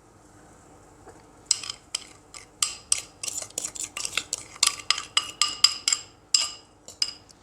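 A spoon scraping and clinking against a dish while sauce is spooned over chicken: a quick run of short scrapes, several a second, starting about one and a half seconds in.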